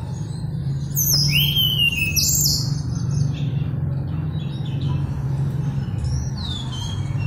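Mangrove blue flycatcher (tledekan bakau) in full song: a rapid phrase of clear, high whistled notes sliding up and down about a second in, then scattered softer notes and a falling whistle near the end, over a steady low hum.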